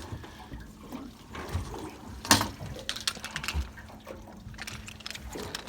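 Water splashing and dripping, mixed with scattered knocks and clatter, with one sharp loud knock a little over two seconds in.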